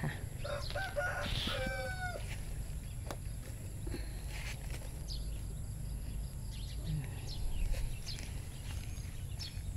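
A rooster crowing once, starting about half a second in and lasting about a second and a half, not close by. Faint short bird chirps come and go through the rest.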